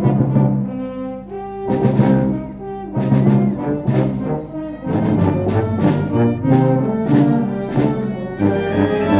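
Concert wind band playing loud brass-led chords in short accented stabs, with percussion hits on the attacks and a ringing cymbal wash near the end.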